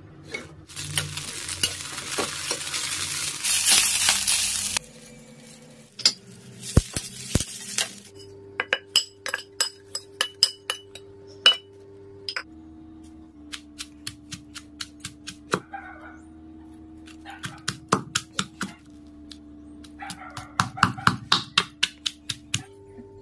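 Oil sizzling in a kadai as green chillies go in for the first few seconds. Then a pestle pounds the fried chillies and garlic in a stone mortar (rolu) for roti pachadi, in runs of sharp strikes about three a second. Soft background music with long held notes plays underneath.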